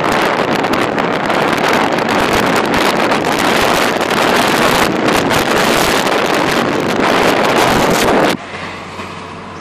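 Wind rushing over the microphone, mixed with road noise from a moving car. About eight seconds in, it drops suddenly to a much quieter steady hum.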